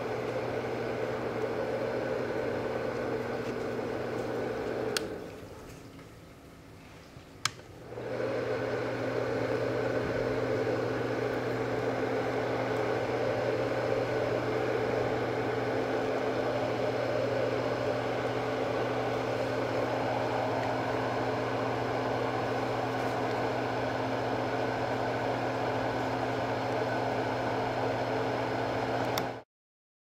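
Fan-type white noise sound machine running: a steady rush of air over a low motor hum. About five seconds in a click comes and the rush dies away over a second; a couple of seconds later another click and the rush comes back, its tone brightening slightly later on. The sound cuts off abruptly just before the end.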